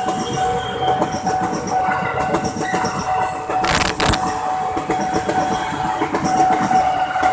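Train passing close by, its wheels rumbling and clattering over the rails, with a steady high tone and a brief loud burst of noise about four seconds in.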